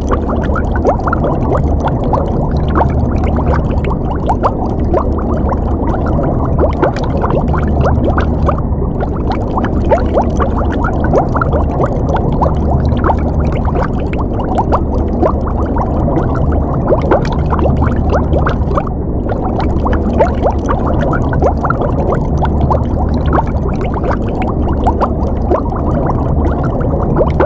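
Underwater ambience: continuous bubbling and gurgling water, dense with small crackling bubble ticks, over a steady low rumble.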